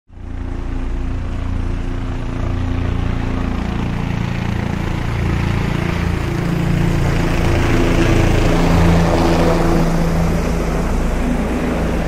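An engine running steadily: a loud, low drone with a few steady tones that shift slightly in pitch.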